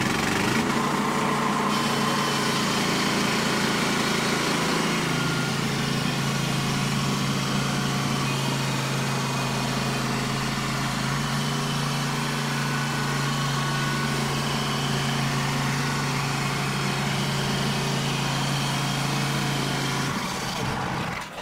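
Gas-engine band sawmill running steadily under load as its blade cuts through a log, the blade damaged from striking a steel log stop but still cutting. The engine and cutting noise fall away about a second before the end.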